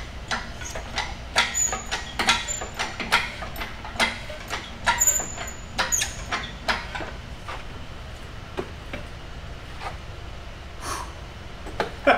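Shop engine hoist lifting an engine free of its subframe: a quick run of metallic clicks and clunks, about two to three a second, thinning to a few scattered knocks after about seven seconds.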